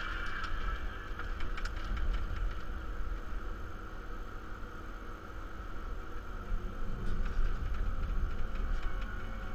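Forestry machine with a disc saw head running, heard from inside the cab: a steady low engine rumble with a steady high whine over it, and a few scattered ticks in the first couple of seconds.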